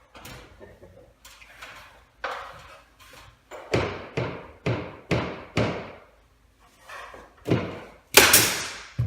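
Loose crown molding being nailed back in place: a series of sharp knocks on wood, lighter at first, then five strong blows in quick succession, about two a second, with the loudest blows near the end.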